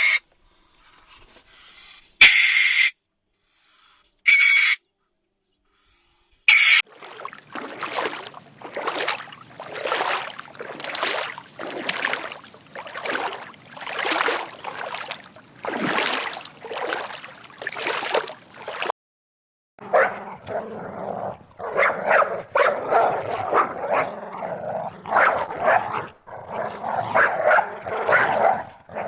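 Dog barking, yipping and whimpering: a few sharp single barks at first, then a long run of repeated calls, a brief pause, and a denser stretch of calls.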